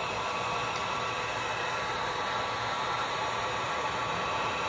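Heat gun blowing steadily, an even rushing hiss at a constant level.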